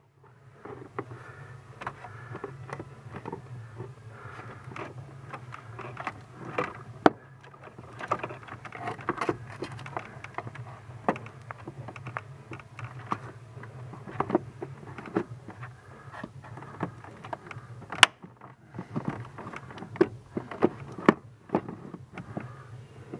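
Plastic heater case cover being worked into place under a car's dash, with irregular rubbing, rustling and sharp plastic clicks and knocks as the cover and wiring harness are handled. A sharp snap about 18 seconds in is the loudest. A steady low hum runs underneath.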